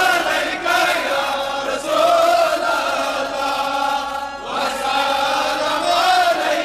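Male voices chanting a devotional naat in Kashmiri, in long sung notes that slowly rise and fall in pitch, without instruments.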